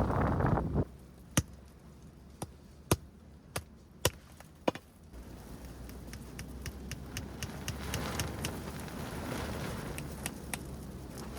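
A gust of wind rushing over the microphone cuts off, followed by six sharp knocks spaced roughly half a second to a second apart. Then a steady rush of wind returns, with light faint taps.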